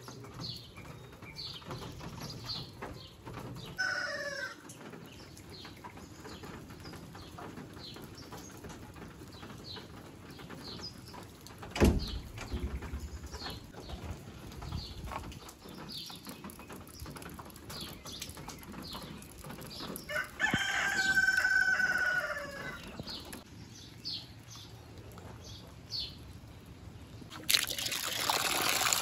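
A rooster crowing, with one long crow about two-thirds of the way through, while small birds chirp throughout. A single loud thump comes about twelve seconds in, and running water starts near the end.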